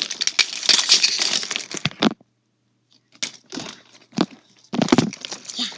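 Fidget toys being handled and rummaged: dense rustling, crinkling and clicking for about two seconds, cutting off abruptly, then scattered clicks and knocks.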